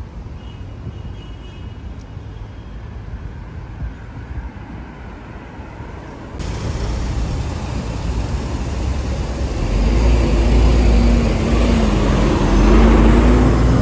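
City road traffic. About six seconds in it suddenly gets louder, and in the last few seconds a heavy vehicle's engine rumbles close by with a wavering hum.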